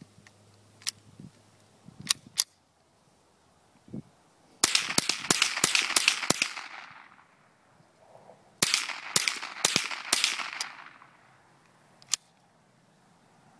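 Ruger 10/22 .22 LR semi-automatic rifle fired rapidly in two strings: about nine quick shots a few seconds in, then about six more after a short pause, each crack trailing off briefly. A few sharp clicks come before the first string, and a single click near the end.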